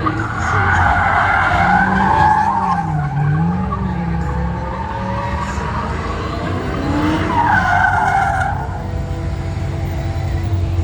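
Dodge Hellcat's supercharged 6.2-litre Hemi V8 revving up and down while its tires squeal in a burnout or slide. The squeal comes in two loud spells, one early and one near the end.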